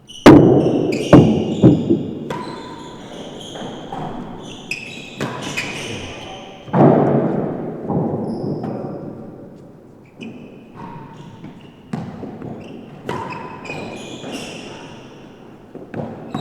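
Real tennis rally: the solid ball struck by rackets and thudding off the court's walls and floor, a few sharp impacts early on, then irregular knocks through the rest, each ringing in the enclosed court.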